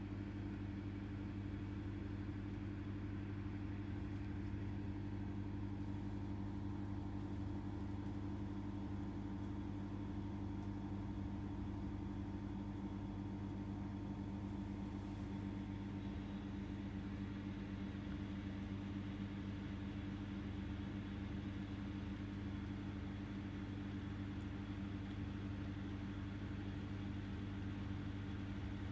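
Steady low machine hum, unchanging throughout: room tone dominated by a running household appliance.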